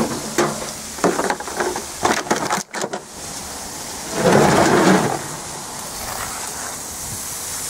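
Handling noise from a handheld camera being carried about: scattered knocks and rustles, and a loud rushing burst on the microphone about four seconds in, followed by a steady hiss.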